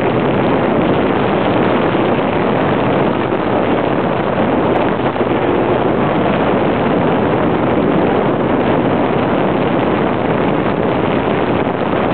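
Steady wind rushing over the microphone on a Bayliner motorboat under way, with the boat's engine running underneath.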